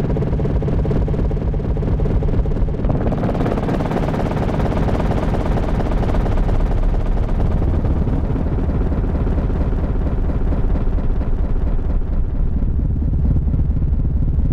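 Electronic feedback noise: a loud, dense drone with a fluttering texture that brightens about three seconds in, over a deep rumble that grows stronger in the later part.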